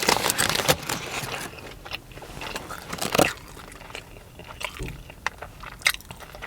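Close-up mouth sounds of chewing crunchy food: dense crunching for about the first second and a half, then scattered single crunches and clicks.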